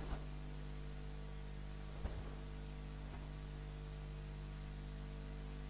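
Quiet room tone carrying a steady electrical mains hum, with a faint tap right at the start and another about two seconds in.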